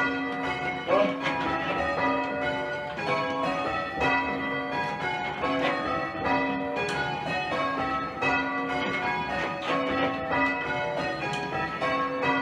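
A very light ring of six church bells being rung in changes: an even, unbroken run of bell strokes one after another, each bell ringing on under the next.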